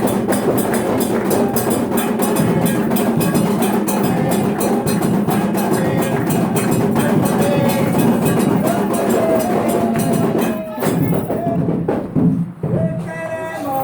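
Music carried by fast, steady percussion. About eleven seconds in, the beat breaks off, and near the end a held melody line comes in.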